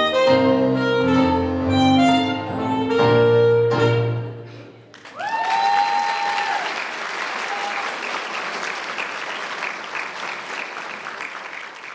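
An electronic keyboard plays the song's closing chords, which die away about four and a half seconds in. Audience applause then breaks out, with a loud whistle that rises and is held for over a second, and the clapping thins out near the end.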